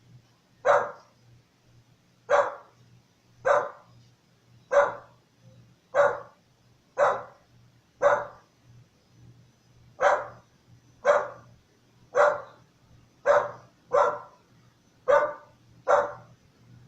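A dog barking repeatedly: single barks about once a second, with a pause of about two seconds near the middle.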